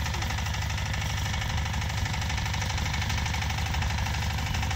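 An engine idling steadily, a low running sound with a fast, even beat.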